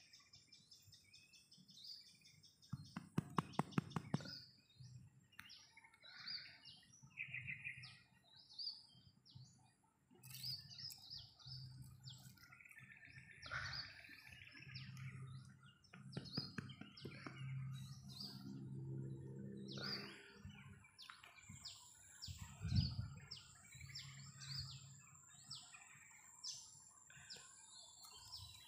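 Wild birds chirping and calling over and over, with a quick run of loud taps about three seconds in and a single knock later on.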